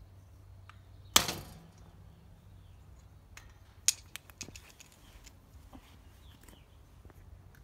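Sharp knocks from work on a wrought iron patio chair's feet with a mallet: a loud knock about a second in with a brief ringing tail, and another about four seconds in followed by a few light clicks.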